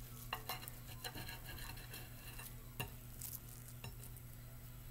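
A knife clicking and scraping against a plate while slicing a sushi roll: a few faint taps, the sharpest nearly three seconds in, over a steady low hum.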